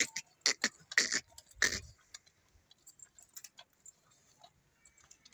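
Calf sucking milk from a goat's teat, smacking and slurping about three times a second, loudly for the first two seconds and then only faintly.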